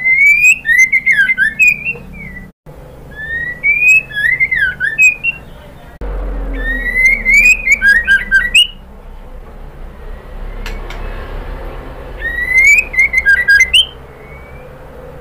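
White-rumped shama (murai batu) singing four short, loud phrases a few seconds apart, each a rising whistle that breaks into quick up-and-down notes with sharp clicks. Presented as a female's call to a male, used as a lure to set male shamas singing.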